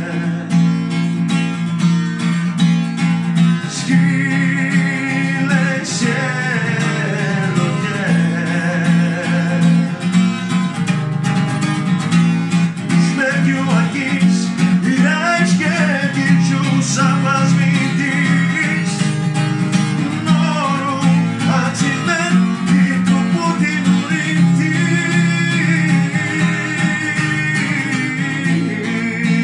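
A man sings in Lithuanian while strumming chords on an acoustic guitar.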